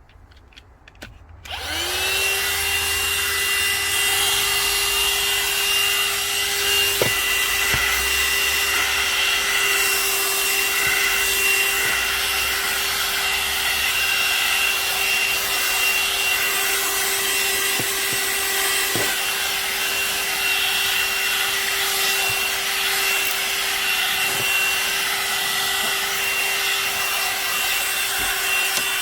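A few clicks, then about a second and a half in a small electric motor appliance switches on. It spins up quickly and runs steadily, with a hum and a high whine over a rush of air.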